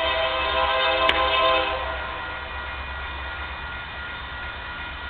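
Union Pacific freight locomotive's air horn sounding a chord blast for the grade crossing, cutting off about two seconds in, with fainter steady tones lingering and a low rumble underneath.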